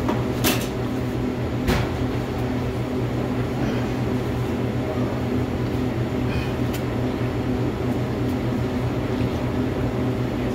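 A steady low mechanical hum with a few short sharp clicks, two of them in the first two seconds.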